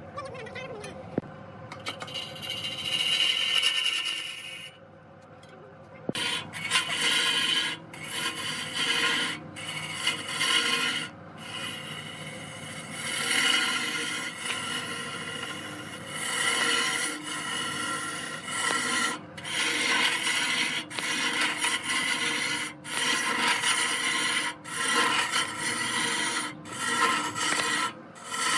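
A cloth pad packed with wood shavings rubbing against a large log spinning on a wood lathe, burnishing the turned surface. A rasping rub that swells and breaks off again every second or two, with a quieter stretch about five seconds in.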